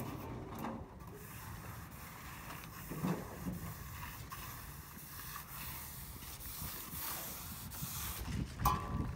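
Wind buffeting the microphone, a low uneven rumble, with a brief knock about three seconds in and a louder clunk near the end.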